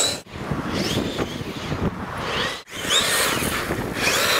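Brushless-converted Baja 5b large-scale RC car running on a 6S LiPo. The Neu electric motor's whine rises and falls with the throttle over the rough noise of the tyres on the ground. The sound cuts out sharply twice.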